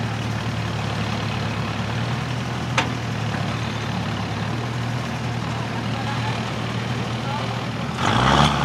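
Truck-trial prototype's engine running slow and steady as it crawls over an obstacle, with one sharp click about three seconds in. Near the end the revs rise sharply and a loud burst of noise comes in.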